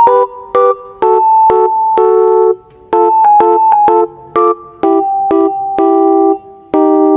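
Background music: a keyboard melody over chords, notes struck one after another and left to ring, in short phrases with brief pauses between them.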